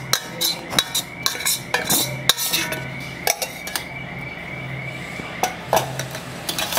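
A steel pan and a wire-mesh strainer clinking against the rim of a stainless steel bowl as syrup is poured and strained into it: a run of light metallic taps, thinning out about halfway, then a few more near the end.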